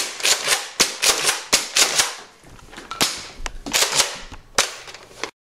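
Nerf Deploy CS-6 foam-dart blaster being primed and fired over and over, a quick run of sharp plastic clacks and pops at uneven spacing.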